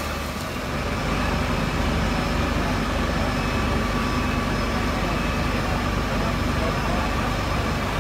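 A large engine running steadily with a low drone, under indistinct voices.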